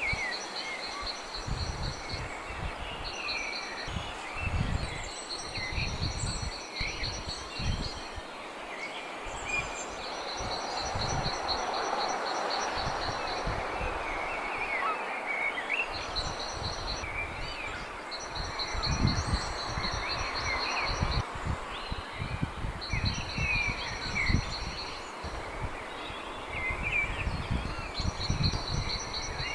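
Small birds chirping and twittering on and off, mixed with recurring spells of a fast, high, evenly pulsed trill. Irregular low rumbles come and go underneath.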